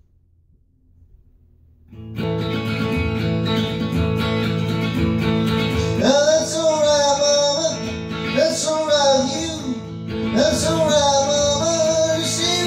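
Hollowbody electric guitar strumming a rockabilly rhythm, starting about two seconds in after near silence. A man's singing voice joins about four seconds later.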